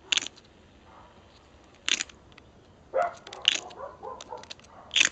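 A hafted flint struck against a marcasite (iron sulfide) nodule four times, about every second and a half, each strike a short, sharp, scraping click. This is percussion fire-making: the strikes throw faint sparks onto tinder.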